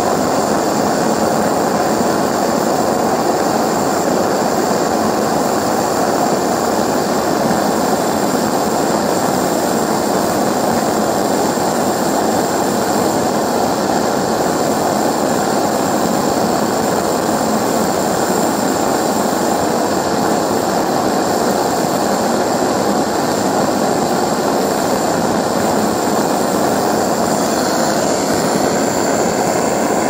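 Water-jacketed pulse detonation engine fired on LPG and compressed air, running steadily with a continuous dense roar and no breaks.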